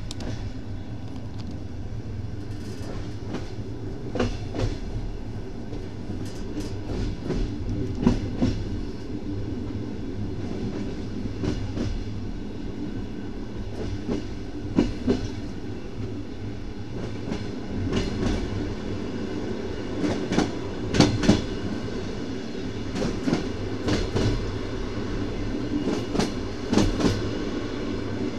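Train wheels clacking over rail joints, heard from aboard the moving train over its steady low rumble. The knocks come in pairs and clusters every few seconds, some much louder than others.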